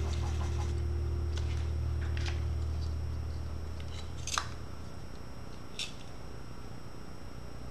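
Charcoal pencil being sharpened in a small handheld sharpener: four short, scratchy scraping sounds, the loudest about four seconds in.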